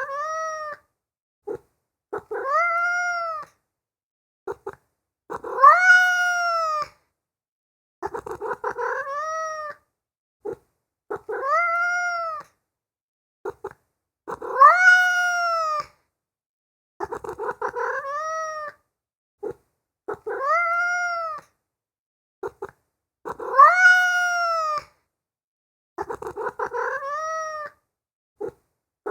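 Domestic cat meowing over and over, each meow arching up and then down in pitch, some opening with a quick rattling pulse. The same run of calls comes round about every nine seconds, with dead silence between meows, as in a looped recording.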